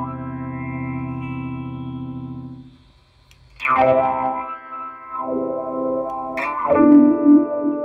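Electric guitar played through an EarthQuaker Devices Spatial Delivery envelope filter in downward-sweep mode: a held chord rings and fades, then fresh chords are struck about a third of the way in and again near the end, each starting bright and sweeping down in tone. The later chords are filtered through the pedal's high-pass setting.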